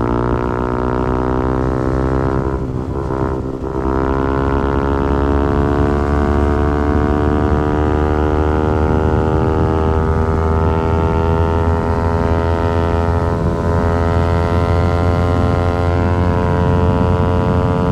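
Yamaha R15 V4's 155 cc single-cylinder engine and exhaust under sustained throttle, the engine note climbing slowly and steadily as the bike pulls up through the revs in one gear, with a brief dip about three seconds in.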